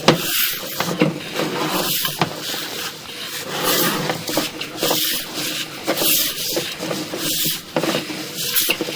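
Sewer inspection camera's push cable and head scraping and rubbing through the pipe, with irregular small knocks as it is fed along.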